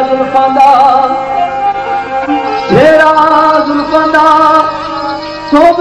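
Music for a sung Pothwari Punjabi kalam (devotional poetry): long held melodic notes with a wavering pitch, swooping up about three seconds in and again near the end.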